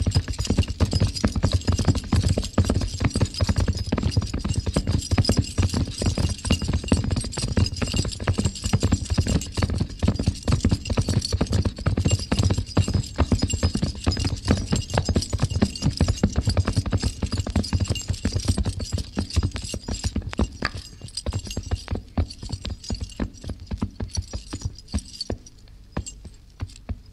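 Two horses galloping, a rapid, dense run of hoofbeats. About twenty seconds in the hoofbeats thin out and slow as the horses come to a stop, fading away near the end.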